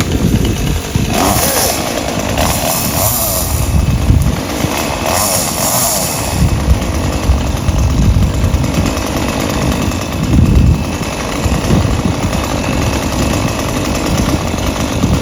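Chainsaw running while cutting into an oak tree, its sound rising and falling unevenly, with several short bursts of hiss in the first six seconds.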